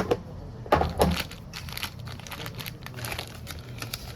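Phone parts and small tools being handled during a smartphone battery repair: a few sharp clicks and knocks in the first second or so, then light crinkling and ticking.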